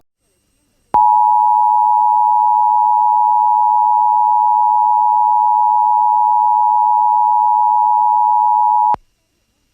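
Emergency Alert System attention signal: a steady, loud two-tone beep that starts about a second in, holds for about eight seconds and cuts off sharply.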